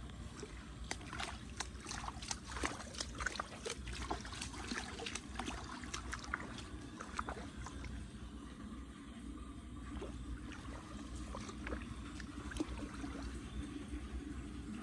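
Floodwater in a street gutter trickling and splashing: many small irregular splashes and clicks, thickest in the first half, over a low steady rumble.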